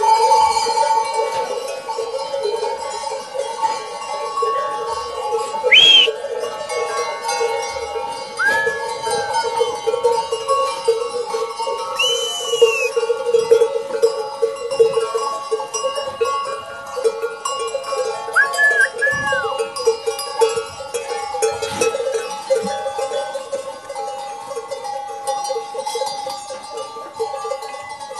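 Bells and small bells hung on the necks of a flock of sheep and lambs, ringing as the animals walk and jostle: a continuous mass of overlapping clanking bell tones.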